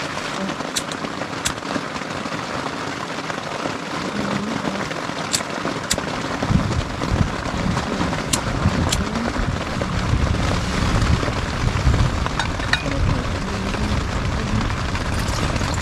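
Steady rain falling, with scattered sharp drop ticks; a low rumble comes in about six seconds in and stays.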